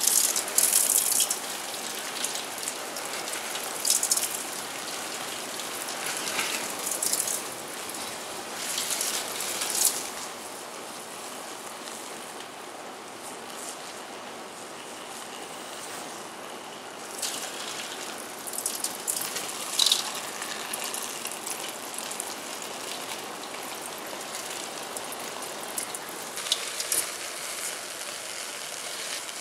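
Burning magnesium shavings in a galvanized steel tub, a steady hiss with irregular surges of crackling and sputtering.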